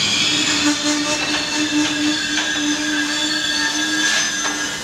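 Train squealing: several steady high-pitched metallic tones over a lower steady whine that stops shortly before the end.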